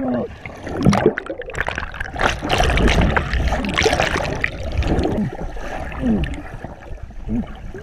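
River water heard underwater: a rushing flow with bubbles gurgling and popping around the camera housing, many short rising and falling bubble notes and scattered ticks.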